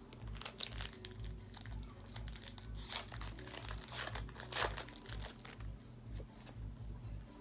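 Foil wrapper of a Pokémon Champion's Path booster pack crinkling and tearing as it is pulled open by hand, a string of crackles loudest about three and four and a half seconds in.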